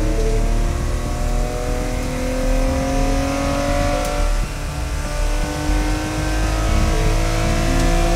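Air-cooled flat-six engine of a 1968 Porsche 911 race car, heard from inside the cabin, accelerating hard with its pitch climbing steadily and a brief dip about four and a half seconds in.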